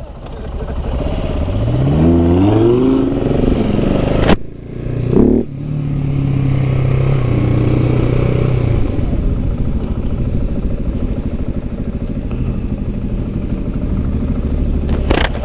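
KTM supermoto's single-cylinder engine accelerating through the gears, its pitch rising in steps, with a loud sharp bang about four seconds in and a smaller one just after. The engine then runs steadily at cruising speed with wind noise, and there is another sharp crack near the end.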